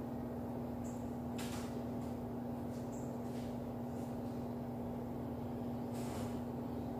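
A steady hum with a constant low tone, and two brief noises, one about a second and a half in and one near the end.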